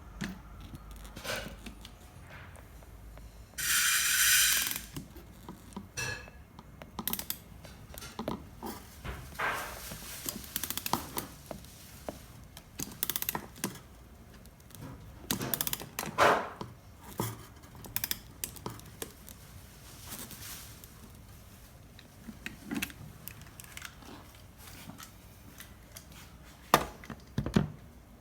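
Scattered clicks, taps and knocks of hand tools and metal tubing as a Lokring union is fitted and pressed onto a refrigerator's copper and aluminium tubes. A short loud hissing rasp comes about four seconds in.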